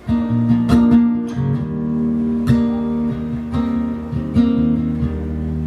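Acoustic guitar playing an instrumental song intro, strummed chords with ringing notes, coming in suddenly at the start.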